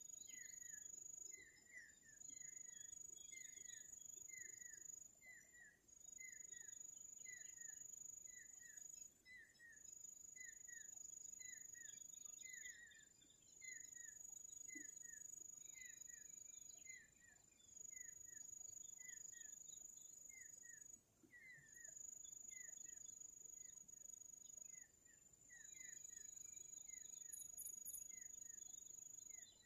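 Faint insect chorus: a steady high-pitched trill that breaks off briefly every few seconds, over a run of short, falling chirps at a lower pitch, about two a second.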